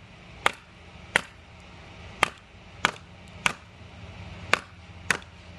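Mini hatchet chopping into wood: seven sharp, separate strikes, about one every half-second to second.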